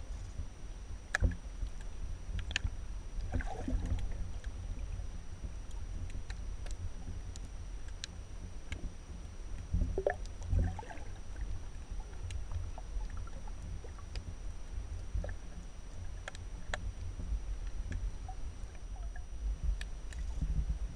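Underwater sound picked up by a camera held below the surface: a steady low rumble of water moving against the camera, with scattered sharp clicks and crackles.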